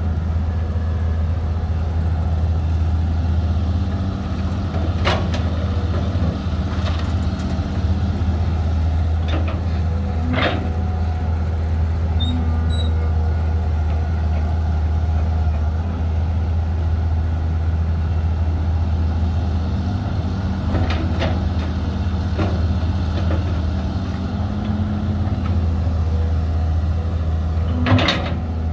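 Heavy diesel engines of an excavator loading a dump truck, running at a steady low hum. Sharp knocks come now and then, about seven in all, and the loudest is near the end.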